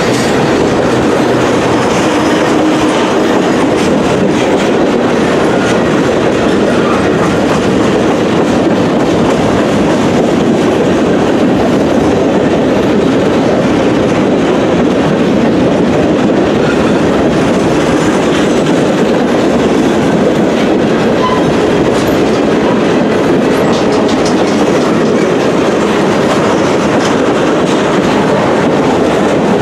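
Boxcars of a long freight train rolling past close by: a loud, steady rattle of steel wheels on the rails, with scattered clacks of wheels over rail joints.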